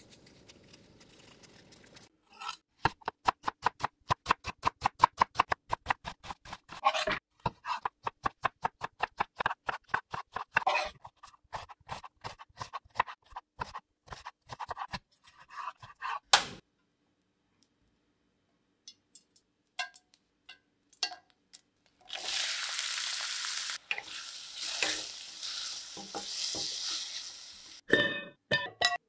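Kitchen knife chopping ginger on a wooden cutting board: a quick, even run of sharp chops, about five a second, that turns slower and irregular. Later comes a steady hiss lasting several seconds, then a few knocks.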